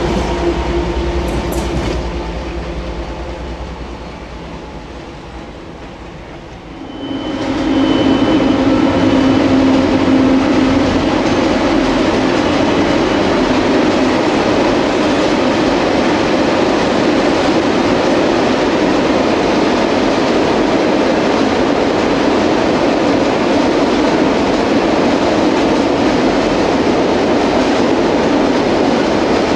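A DB Class 241 diesel locomotive's engine fades as it moves away down the track. About seven seconds in, the sound changes abruptly to a loaded freight train crossing a steel trestle viaduct: a loud, steady noise of wheels and wagons on the bridge with a low steady hum.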